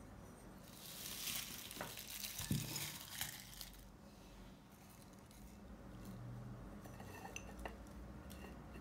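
Cellophane-wrapped candies rustling and clinking against a glazed ceramic jar for about three seconds, with one louder knock partway through. A few light ceramic clicks follow near the end.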